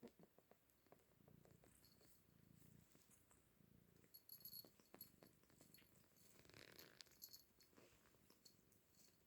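Domestic cat purring quietly, a low rumble that swells and fades with each breath, which the owner likens to a motorcycle. Faint small clicks are scattered through it.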